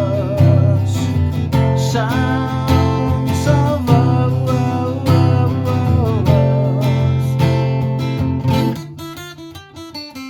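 An acoustic guitar strummed in a song; the playing grows quieter and sparser about nine seconds in.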